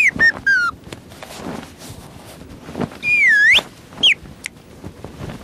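High-pitched squeaky chirps voicing a small cartoon bird: a quick run of short gliding chirps, then one longer wavering squeal about three seconds in and a single short chirp after it.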